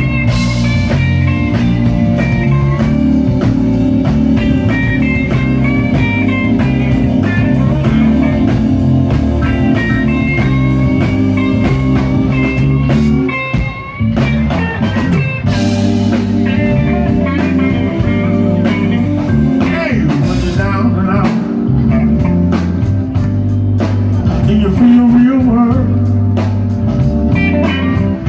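Live Chicago blues band playing a slow blues: a lead electric guitar plays bending melodic lines over bass and drums, with a brief break about halfway through.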